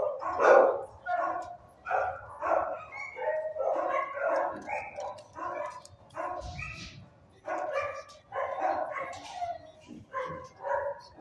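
Dogs in shelter kennels barking repeatedly, short barks following one another in quick succession.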